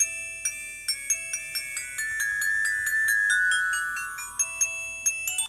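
A ringtone previewing through the small built-in speaker of a SciPhone iPhone 3G clone: a quick melody of many short ringing notes over a few held tones. It cuts off suddenly at the end.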